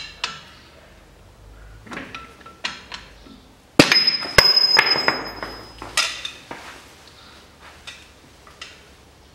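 Screwdrivers prying the drive flange off the splined front axle shaft of a Land Rover Defender hub: scattered metal clicks and scrapes, with a loud metallic clank and ringing about four seconds in, then more scraping and a few lighter clinks.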